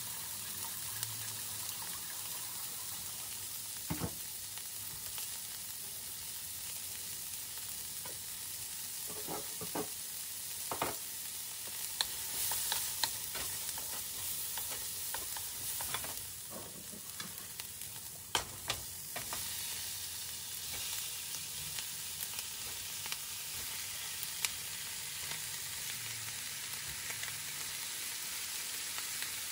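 Diced onion and ginger sizzling in oil in a nonstick wok, a steady hiss, with a wooden spatula stirring and knocking against the pan now and then.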